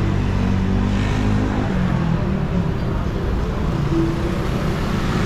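Street traffic: a nearby motor vehicle's engine running with a steady low hum that drops away a little under two seconds in, over a constant wash of road noise.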